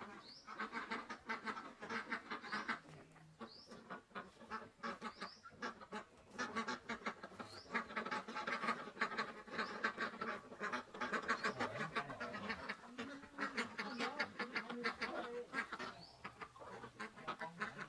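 Animal calls, many in quick succession, with a few brief lulls.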